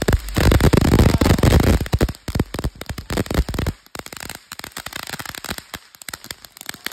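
Ground fountain firework spraying sparks with a dense, rapid crackle, loudest over the first two seconds, then thinning out to a sparser, quieter popping crackle after about four seconds.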